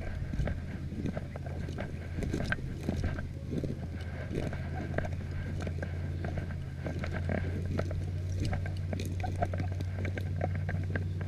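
Footsteps and rustling through dry grass and brush, with many small irregular crackles and snaps, over a steady low hum.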